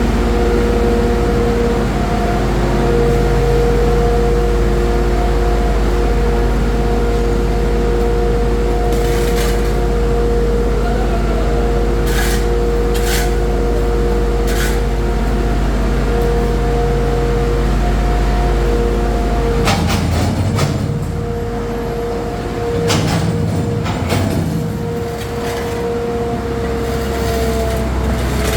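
An engine running steadily, with a constant hum. About 20 s in its low note changes. A few sharp knocks and scrapes of tools are heard over it.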